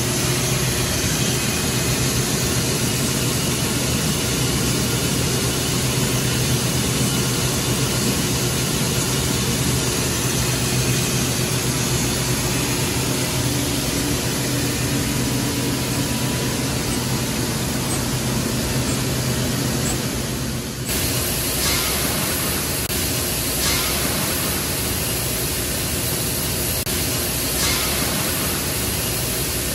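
Continuous tube mill running: a steady industrial drone and hiss over a low hum. About two-thirds of the way through it changes abruptly to a brighter hiss with a few faint clicks.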